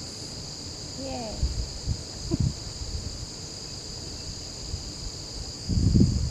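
Insect chorus, most likely crickets: a steady high-pitched trilling that never breaks, over a low rumble that swells briefly near the end.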